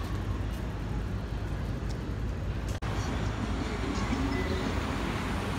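City street traffic: a steady low rumble of engines and tyres from passing cars and buses, broken by a sudden brief gap about three seconds in where the recording cuts.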